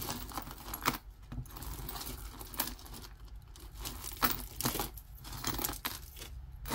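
Costume jewelry being handled on a tabletop: metal chains, beads and bangles clinking and rattling against each other in irregular short bursts.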